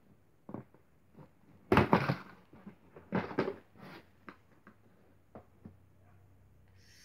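A Play-Doh dentist toy box being opened and handled: a run of knocks and clattering thuds, the loudest about two seconds in and again about three seconds in, with lighter clicks of plastic pieces between.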